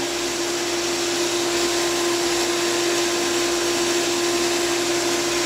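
Pentair Whisperflo pool pump running steadily on its newly fitted 3-horsepower motor: an even whir with a constant hum tone.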